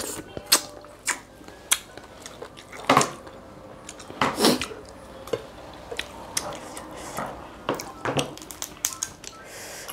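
Cooked blue swimmer crab shells snapped and cracked apart by hand, a run of sharp cracks and clicks, with two louder wet sucking slurps about three seconds in and around four and a half seconds as crab meat is sucked out of the shell.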